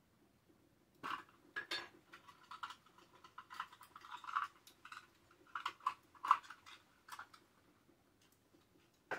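Small hard objects clinking and knocking as they are handled and set down on a wooden dresser top: a run of irregular clicks and clatter for about six seconds, loudest near the end of the run, then one last click.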